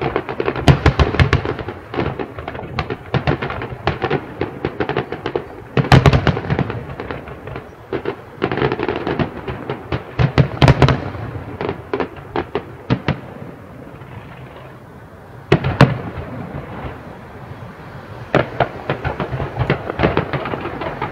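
Fireworks display going off: rapid crackling and popping with heavier bangs among it, the loudest about six, eleven and fifteen seconds in, and a short lull just before the last of these.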